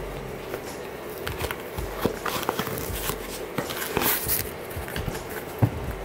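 Handling noise of a sneaker as its insole is worked out: rustling and scattered small clicks and knocks, with a louder rustle about four seconds in and a sharp knock near the end.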